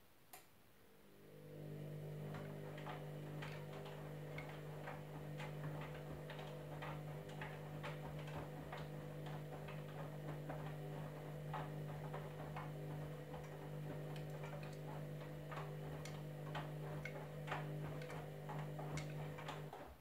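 Candy Grand'O Vita washing machine tumbling a load: a click, then the drum motor starts about a second in and hums steadily, with many irregular light ticks from the tumbling wash. The motor stops just before the end, a pause in the wash cycle's tumble-and-rest rhythm.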